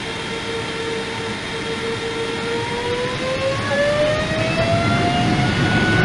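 General Electric GE90 turbofan on a Boeing 777 spooling up during engine start: a steady whine over a rushing hiss, which begins rising in pitch about two and a half seconds in and keeps climbing as it grows slowly louder.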